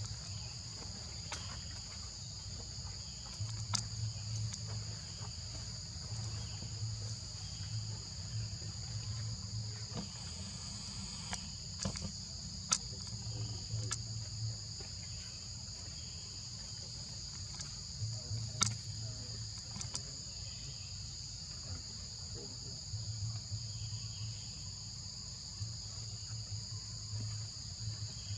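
Steady insect chorus: a continuous high-pitched shrill drone on two pitches. Underneath, a low hum comes and goes, and a few sharp clicks stand out.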